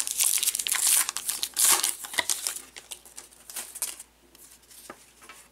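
Baseball card pack's wrapper being torn open and the cards pulled out and handled: a run of crackly rustles and tears, loudest in the first two and a half seconds and dying away about four seconds in.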